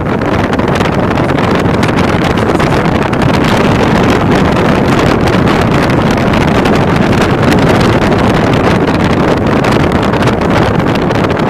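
Loud, steady wind rush on the microphone of a camera held outside a moving car's window, with rapid gusty crackling buffets.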